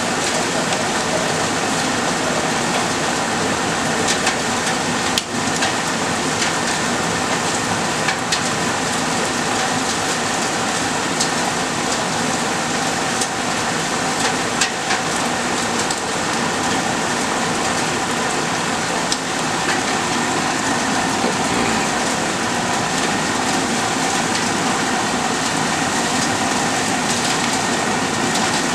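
Steady heavy rain from a thunderstorm, with scattered sharp ticks of drops striking close by.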